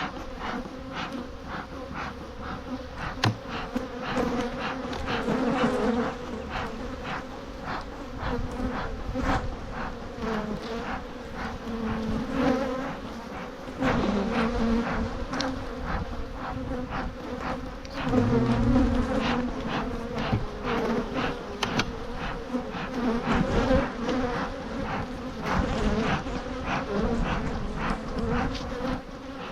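A swarm of honeybees buzzing around an open hive: a dense, steady hum with a low tone and its overtone. It is dotted throughout with short puffs and clicks from a bee smoker being worked.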